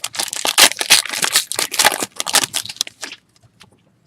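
Foil wrapper of a trading card pack being torn open and crinkled, a dense crackling that stops about three seconds in.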